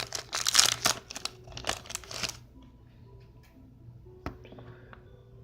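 Foil Pokémon TCG booster pack wrapper crinkling and tearing as it is opened, dense for about two seconds, then dying down to faint handling with a single sharp tap.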